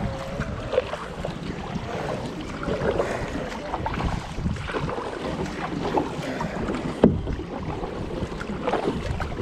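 Kayak paddling on a river: irregular paddle splashes and water sloshing around the hull, with wind buffeting the microphone, and one sharp knock about seven seconds in.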